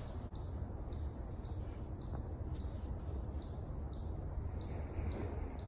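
Short high chirps repeating about twice a second from a small bird or insect, over a low steady rumble.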